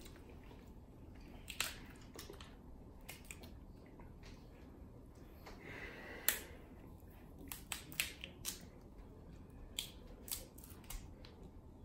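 Crab-leg shells cracking and snapping as they are broken apart by hand: a dozen or so sharp, separate cracks spread irregularly, with soft chewing in between.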